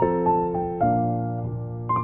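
Background music: a gentle piano or electric piano melody over held chords, a new note struck about every half second.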